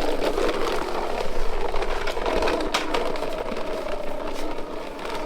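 Heavy construction machinery engine running steadily, with a faint steady whine in the middle and a few sharp clanks.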